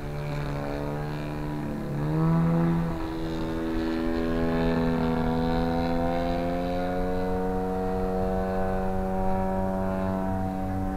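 Engine and propeller of a 40% scale Sbach RC aerobatic airplane in flight: a steady buzzing drone. Its pitch rises sharply about two seconds in as the throttle is opened, then holds high and edges slightly higher.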